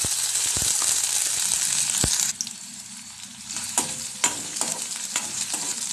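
Chopped onions sizzling loudly in hot tempered oil in a steel kadai. The sizzle drops off suddenly a little over two seconds in, leaving a quieter frying hiss. From there a spatula scrapes and knocks against the steel as the onions are stirred.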